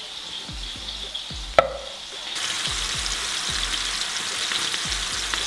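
A knife cutting button mushrooms on a wooden board, with one sharp knock of the blade about one and a half seconds in. About two and a half seconds in, this gives way to pork meatballs sizzling steadily in sunflower oil in a frying pan.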